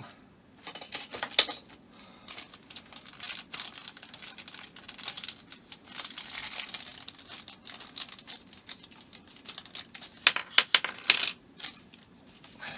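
Small plastic model-kit parts being handled on a work surface: irregular light clicks and rustling, with a few sharper clicks about a second in and again near the end.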